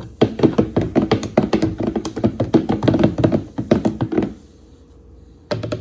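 A utensil stirring chia seeds into a drink, tapping rapidly against the sides of the container, several clinks a second. The stirring stops about four seconds in, and a single knock follows near the end.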